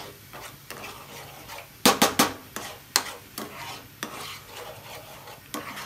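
A spoon stirring and scraping thick tomato purée as it simmers in a small pan, the spoon knocking against the pan several times, loudest in a quick run of three knocks about two seconds in. The purée is being cooked down into tomato sauce.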